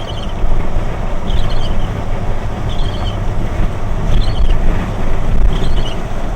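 Steady road and engine rumble from a moving vehicle, heard inside it. A short high chirp repeats about every one and a half seconds.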